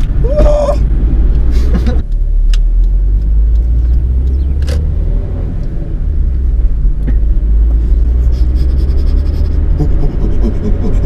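Inside a stripped-out Honda Civic while driving: a loud, steady low rumble of engine and road noise, with a few sharp knocks from the bare cabin.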